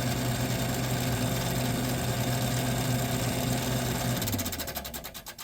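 1978 Gibson Air Sweep window air conditioner running with a steady low hum from its reciprocating compressor and fans. About four seconds in the hum stops and the fan spins down with a slowing, fading beat.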